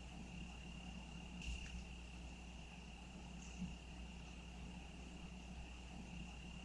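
Crickets trilling in one steady, high, thin continuous tone, faint, over a low steady hum. A soft brief noise comes about one and a half seconds in.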